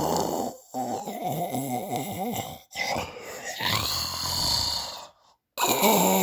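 Snoring, with abrupt breaks to silence: a short one about half a second in, a brief one in the middle, and a half-second gap near the end.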